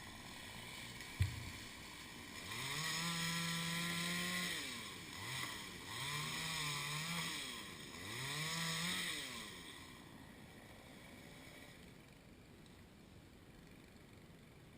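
Chainsaw revved to full throttle three times, each burst rising, holding and falling back, with a short blip between the first two. After that it settles to a low background. There is a single sharp knock about a second in.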